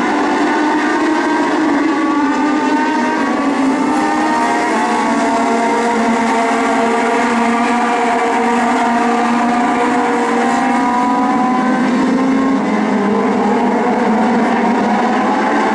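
A pack of Legend race cars at full throttle, their four-cylinder Yamaha motorcycle engines running together, several pitches rising and falling as the cars pass through the turns and down the straights.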